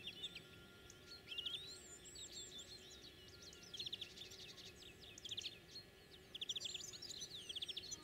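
Several small songbirds singing, with rapid high trills and chirps in repeated, overlapping bursts.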